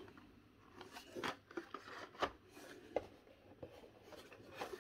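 Faint handling noise of Hot Wheels blister-card packaging, plastic blisters and cardboard backing rubbing and rustling as cards are shuffled in a cardboard box. A few sharper clicks come in the middle.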